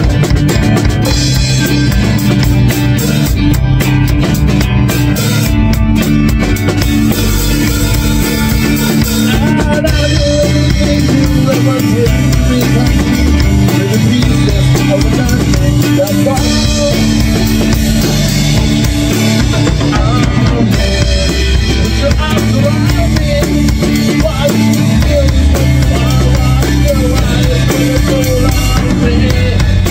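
Rock band playing live: a drum kit with bass drum and cymbals keeping a steady beat under electric and acoustic guitars.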